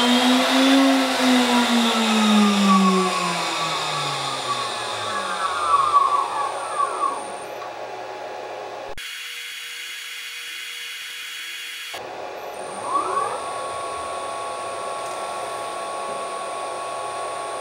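VFD-driven CNC spindle motor whining as it speeds up and slows down. Its pitch rises for about a second, then sinks over several seconds as it winds down. After a short break it spins up quickly to a steady high whine, and begins to wind down right at the end.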